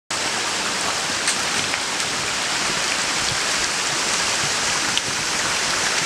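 Steady rushing of water from a stream and waterfall in a rocky gorge: an even, hissing wash of sound with a few faint ticks.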